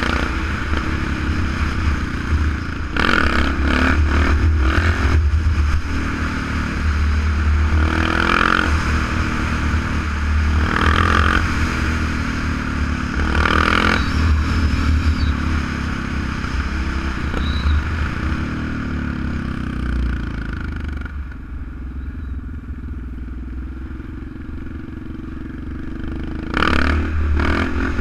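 Kawasaki KLR650 single-cylinder four-stroke engine running under way, with wind noise on the helmet-mounted microphone. The engine swells several times, drops quieter for a few seconds about three-quarters of the way through, then picks up again near the end.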